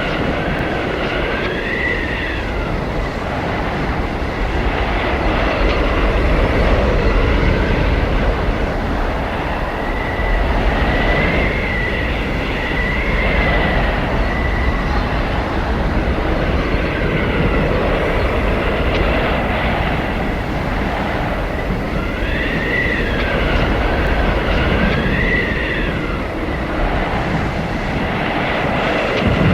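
Blizzard wind blowing hard and steadily, with a high whistling howl that swells and falls away in waves every several seconds.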